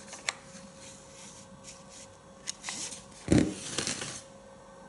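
Light clicks and rubbing from the Sauer 404 rifle's trigger unit as its trigger-weight selector is set and the action is handled. A sharp click comes near the start, and a louder bump comes about three and a half seconds in.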